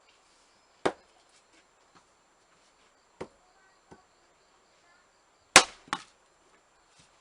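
Hand-forged axe splitting firewood: sharp strikes on wood, a loud one about a second in, two lighter knocks, then the loudest strike followed closely by a second one.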